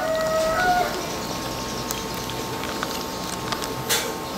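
Pork stew broth boiling in a pan, a steady bubbling and popping with a few small ticks, one a little louder near the end, over a steady faint hum.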